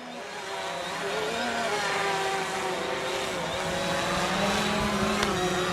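Quadcopter drone's propellers whining in flight: a steady buzz of several tones together that grows louder over the first couple of seconds and wavers slightly in pitch.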